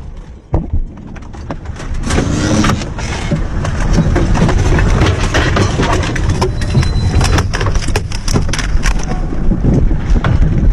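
Dense rustling and scraping with many knocks and clatters, louder from about two seconds in: camera and kit being jostled as a soldier scrambles out of an armoured vehicle and moves over the ground.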